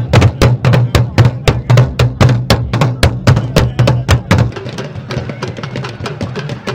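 Fast drumming, about five strokes a second, with a deep booming beat under it. A little past halfway the deep beat drops out, leaving lighter, quicker drum strokes.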